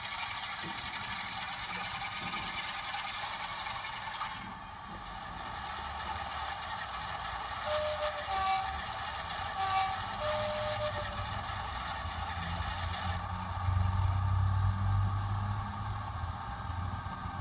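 Hornby TTS sound decoder in a model Class 47 diesel locomotive playing its engine sounds through the model's small speaker: a steady running engine with a hissy upper layer, then a two-tone horn sounded in a few short notes about eight to ten seconds in. From about thirteen seconds the hiss drops out and a deeper engine rumble takes over.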